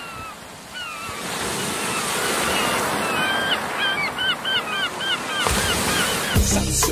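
Ocean surf washing on a beach, with a bird giving a string of short calls that bend up and down in pitch, coming thickest in the middle. Music with a beat comes back in near the end.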